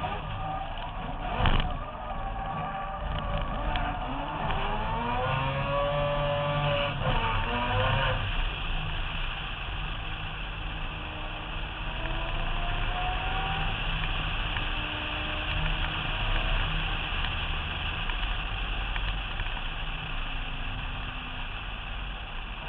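Race car engine revving hard under wind noise on a roof-mounted camera, with a sharp bang about a second and a half in. The revs climb twice and cut off abruptly near the 8-second mark.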